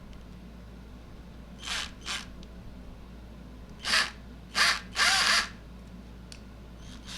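A small power tool run in five short bursts against metal, the last and longest about half a second. It is cutting a slot into a stripped screw head, turning it into a flat-head screw so it can be backed out.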